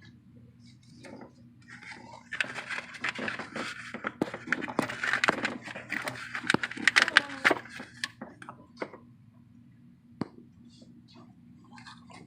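Hands and tools working on the car: a busy stretch of scraping, clicking and knocking of parts being handled, over a faint steady low hum.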